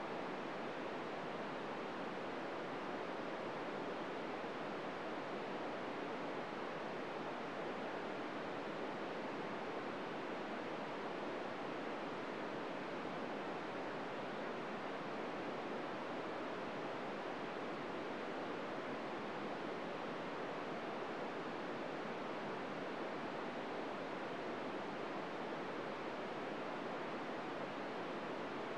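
Steady FM radio static: a 2-metre receiver tuned to the ISS SSTV downlink on 145.800 MHz hissing with its squelch open and no SSTV tones coming through.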